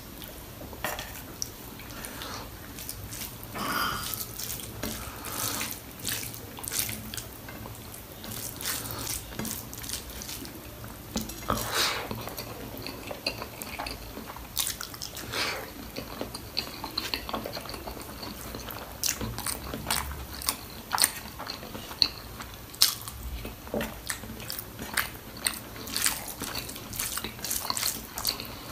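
Close-up wet eating sounds of a person eating goat trotters (mutton paya) in gravy with rice: chewing and lip-smacking, heard as many short, irregular wet clicks and smacks.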